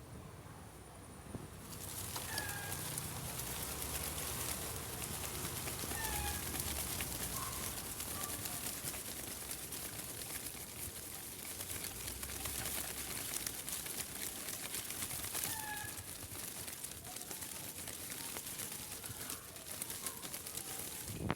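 Outdoor ambience: a steady hiss that comes up about two seconds in, with a few short, scattered bird chirps over it.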